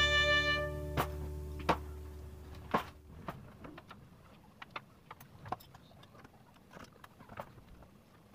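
Background music ending in the first second, followed by scattered light knocks and clicks from hands working on ceiling framing and materials.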